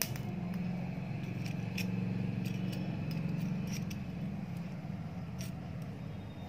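Screwdriver clicking and scraping on the metal thermostat of an electric iron as its adjusting screw is loosened, with several sharp ticks over a steady low hum.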